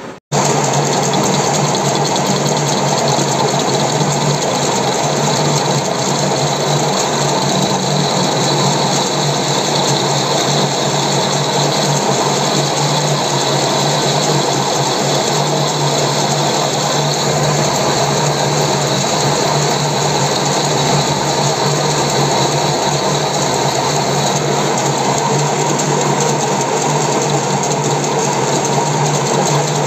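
Metal lathe running steadily, its chuck spinning a hydraulic cylinder rod end, with a constant low hum under an even mechanical whir. It starts abruptly a moment in.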